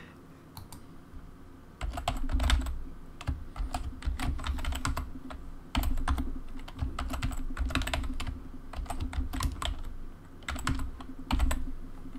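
Computer keyboard being typed on: irregular bursts of keystrokes as a password is entered and then entered again, many keys landing with a dull knock.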